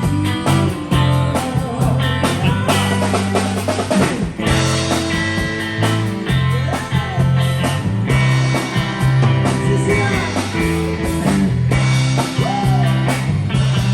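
Rock song playing, with drum kit, bass, electric guitar and a sung vocal line.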